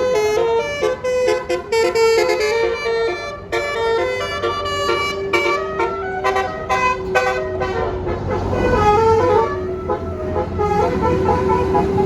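Bus telolet basuri musical horn playing a quick tune of stepping notes over one held note. A low bus engine rumble swells about eight seconds in.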